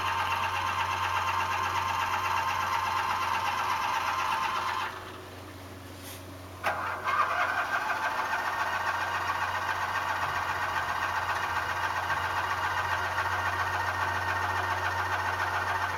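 Tractor engine being cranked by its starter motor without catching: one long crank, a pause with a couple of clicks, then a second long crank that cuts off at the end.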